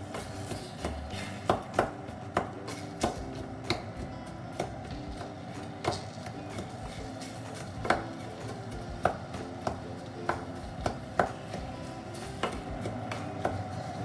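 Knife chopping on a cutting board: sharp, uneven knocks about once a second, over soft background music.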